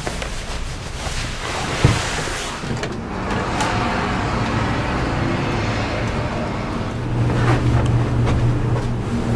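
Steady rushing street noise of passing traffic, with a single sharp knock about two seconds in and a low hum joining from about seven seconds in.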